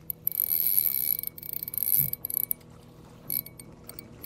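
Spinning reel being cranked to reel in a hooked fish: a high whirring with fine rapid clicks from the reel's gears, in two quick spurts, then it stops.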